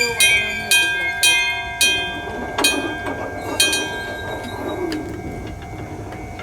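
Japanese electric-bell level crossing warning bell striking with ringing tones, the strikes slowing from about two a second to under one a second and stopping about four seconds in. A train's low rumble runs underneath.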